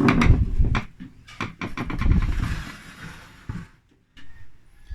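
Irregular knocks, clicks and scraping of parts being handled as a reassembled microwave cooling-fan motor is fitted back into the oven, with a brief pause near the end.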